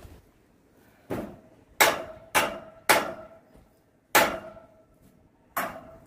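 Hammer striking the metal pipe frame of a vinyl greenhouse during demolition: six sharp blows at uneven intervals, each followed by a short metallic ring.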